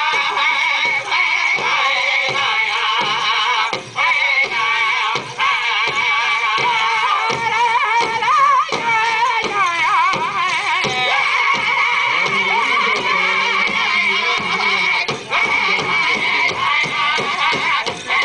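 Powwow drum and singers performing a chicken dance song: high, wavering voices over a steady beat of about two to three drum strokes a second.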